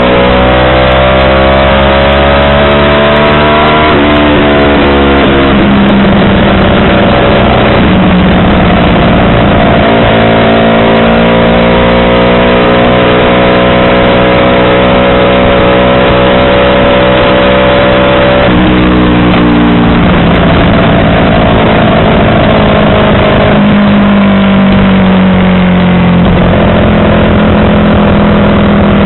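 Yamaha R25's parallel-twin engine through a WRX aftermarket exhaust, riding and pulling through the gears: the engine note climbs slowly and drops sharply twice at shifts before climbing again.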